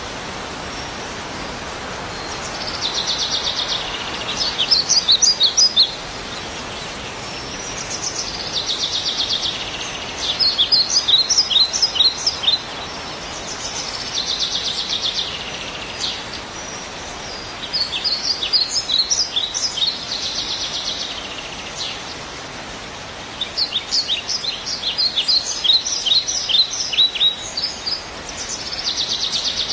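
A songbird singing the same song over and over, about every six seconds: a buzzy trill, then a quick run of sharp falling notes. A steady hiss lies underneath.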